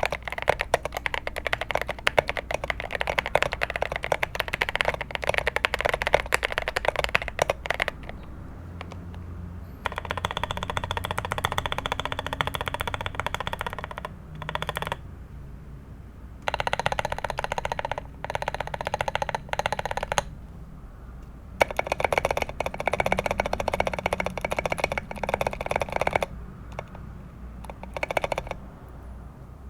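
Fast typing on a modded GMMK Pro mechanical keyboard: Everglide Beeswax switches with 75 g springs and 205g0 lube, holee-modded Glorious GOAT stabilizers, a polycarbonate plate, PE foam and SA-profile keycaps. The keys clatter in runs of several seconds, broken by short pauses of a second or two.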